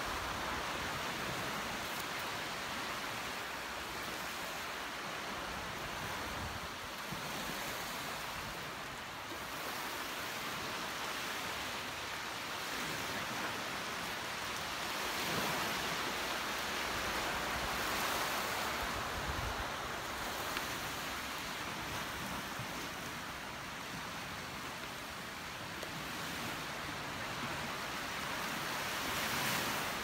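Small waves washing onto a sandy beach: a steady surf hiss that swells and eases every few seconds.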